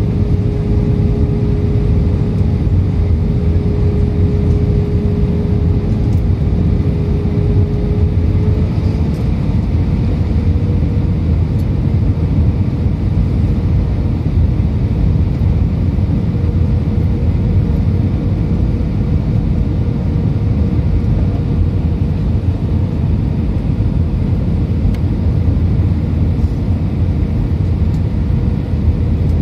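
Airbus A320 cabin noise on approach: a steady low rumble of the engines and the airflow past the fuselage. A steady hum sits on top of it and steps up slightly in pitch about nine seconds in.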